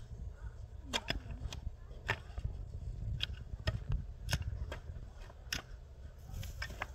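Shovel and pick blades striking and scraping stony soil while digging: about a dozen sharp, irregular clinks and scrapes.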